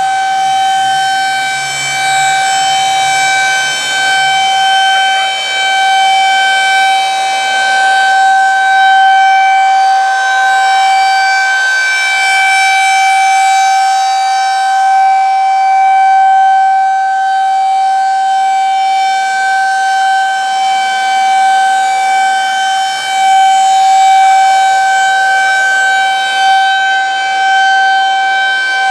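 Federal Signal 2001-SRNB rotating outdoor warning siren sounding its steady 772 Hz alert tone, a loud single note held without a break. The note swells and fades slightly as the horn rotates.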